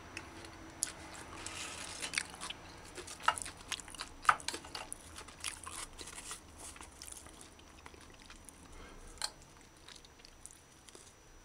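A person chewing and crunching tortilla chips loaded with ground-beef chili, close up: irregular sharp crunches and clicks that thin out near the end.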